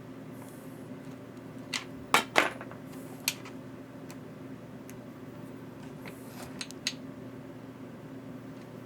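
Small hard objects clicking and knocking as they are handled on a workbench: two loud knocks about two seconds in, single clicks a second later and a few more near seven seconds, over a steady low hum.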